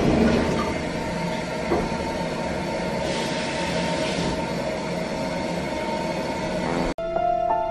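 Toilet cistern refilling just after a flush: a steady rushing of water with a faint steady tone in it. It cuts off about seven seconds in, and soft music begins.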